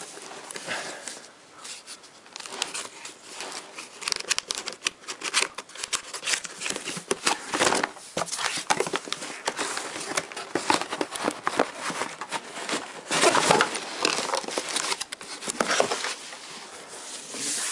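Cardboard tool-kit box being opened by hand: flaps pulled open and inner cardboard packaging handled, a run of irregular rustling, scraping and crinkling with louder handling about halfway through and again after about thirteen seconds.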